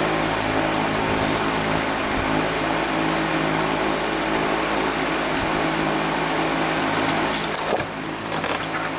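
Radiator coolant draining from the loosened drain plug and splashing steadily into a pan, over a steady low machine hum; a brief, sharper rush of noise comes near the end.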